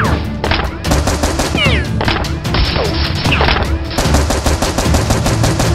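Rapid automatic gunfire sound effects, many shots a second, dubbed over a toy blaster. A few whizzing glides cut through the shooting.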